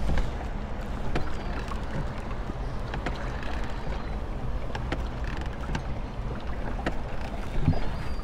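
Small wooden rowing boat being rowed by hand with a pair of oars: irregular short knocks of the oars working in the boat, over a steady low rumble of wind on the microphone.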